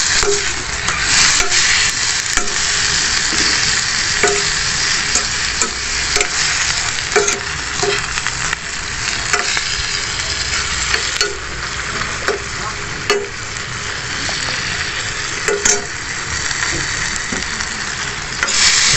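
Mixed vegetables sizzling steadily in a hot pan as they are stir-fried, with irregular scraping clacks of the spatula against the pan as the pieces are tossed.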